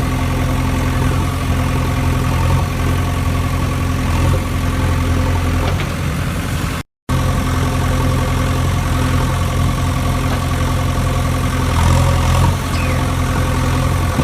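An engine idling steadily with a low hum, broken by a brief silent gap about seven seconds in.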